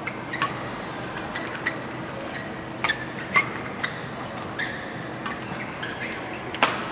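Badminton rackets striking the shuttlecock back and forth in a fast doubles rally: a string of sharp, irregularly spaced hits, the loudest near the end, over the hum of a large hall.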